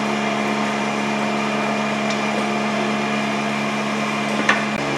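Steady background hum, with one sharp metallic clank that rings briefly near the end as the floor jack and its long steel handle lever against the base of the heavy mill.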